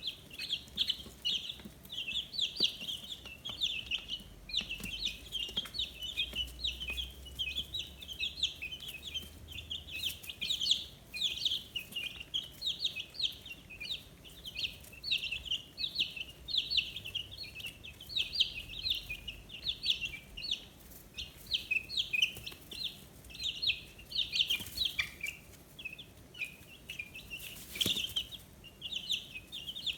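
A brood of 15-day-old chicks peeping continuously, many high-pitched short chirps overlapping several times a second. A couple of brief knocks or rustles come near the end.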